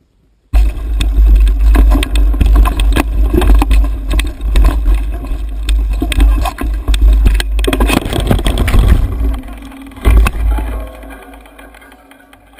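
Mountain bike rattling and clattering down a rough trail, with heavy wind rumble on the handlebar-mounted camera, starting about half a second in. About ten seconds in come a few heavy knocks as the bike crashes to the ground, and the noise then dies away.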